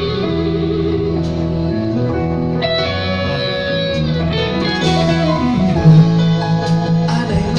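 Rock music led by guitar, an instrumental passage without singing.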